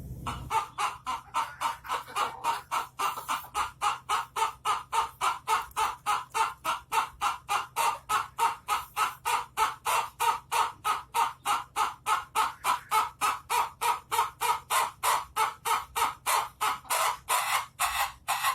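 Ayam ketawa (laughing chicken) rooster crowing in one long unbroken run of short, rapid staccato notes, about three or four a second, like laughter.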